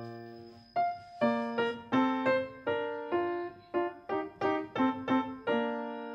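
Background piano music: a gentle melody of struck notes, each fading before the next, with a brief pause about a second in.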